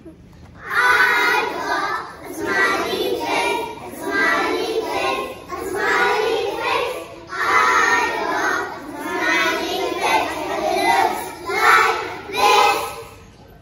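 Group of young children singing together in short phrases, stopping shortly before the end.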